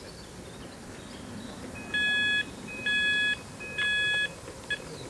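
Three electronic beeps, each about half a second long and about a second apart, followed by a short blip; each beep is a steady, high chord of several tones.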